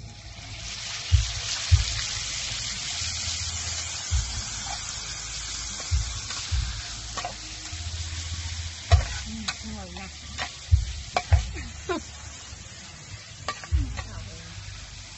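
Sauce poured into a hot wok of frying lemongrass sizzles, the hiss strongest in the first few seconds and then easing, while a spatula stirring the pan knocks and scrapes against it about a dozen times.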